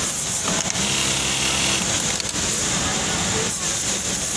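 Steady din of many sewing machines on a garment-factory floor. A Juki DDL-8100B-7 single-needle lockstitch machine runs a short, even-pitched stitching burst of about a second, starting a little under a second in.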